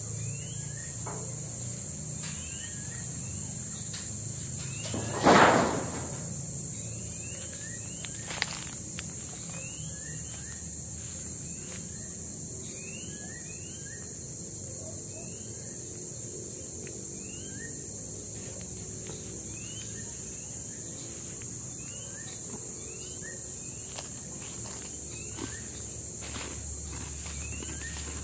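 A steady high-pitched drone of crickets or cicadas, with short rising bird chirps repeating about once a second. A single brief, louder sound stands out about five seconds in.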